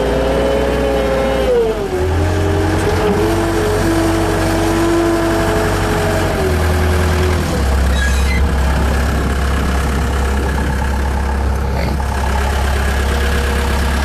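Bobcat skid steer loader's engine running steadily while it drives the 72-inch sweeper broom attachment over pavement, heard from the operator's seat. The engine pitch drops about two seconds in and shifts again about seven and a half seconds in.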